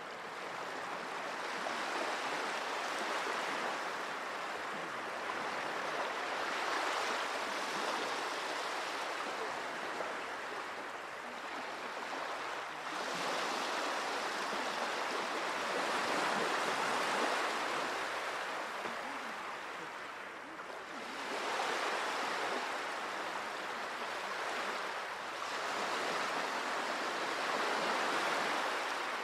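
Small sea waves washing onto the shore: a steady rush of surf that swells and eases every few seconds.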